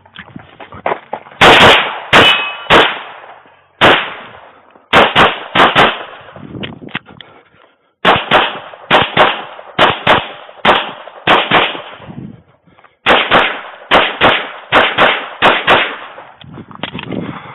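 Rapid handgun fire in a USPSA practical pistol stage, about thirty sharp shots, mostly in quick pairs, with short pauses between groups of pairs.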